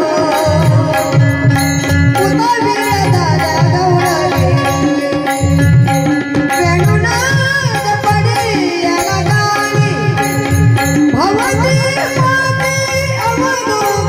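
Indian folk music played live: tabla keeping a steady repeating rhythm under a bending melody line, with bulbul tarang accompaniment and a held drone note.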